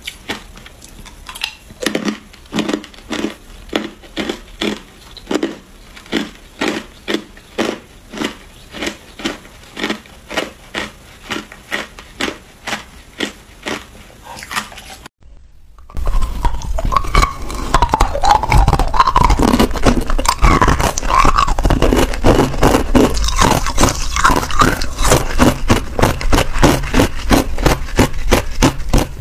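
Ice being chewed close to the microphone: crisp crunches at a steady pace of about two a second. About halfway through it cuts to louder, denser crunching of frosted ice cubes.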